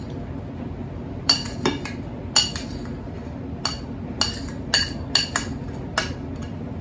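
Metal spoon clinking against a ceramic plate and a glass as lemon zest is scraped and tapped off: about nine sharp, ringing clinks at irregular intervals.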